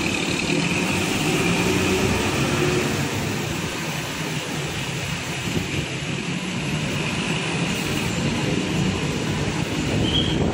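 Large diesel bus engine running close by as the bus pulls in, over steady road traffic.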